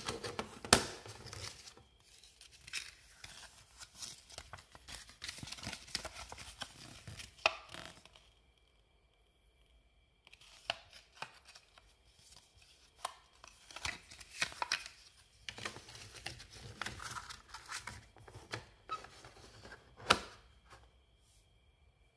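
A cassette tape and its clear plastic case being handled: scattered plastic clicks and taps, and the folded paper insert rustling as it is taken out and opened. The sharpest clicks come just after the start and about 20 seconds in.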